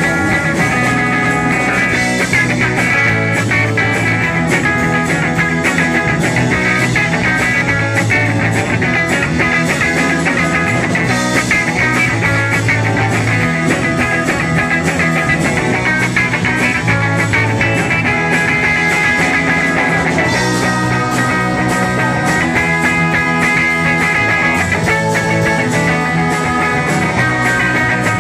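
Live rock band playing loud and steady: strummed electric guitar over bass guitar and drums.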